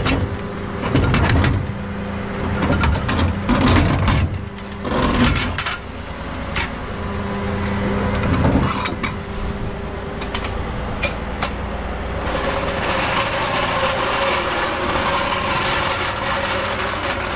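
Tow truck's engine idling steadily, under knocks and clatter of wooden cribbing blocks being dug out of a steel toolbox. Over the last few seconds a steady rolling rumble takes over as a floor jack is wheeled across a concrete driveway.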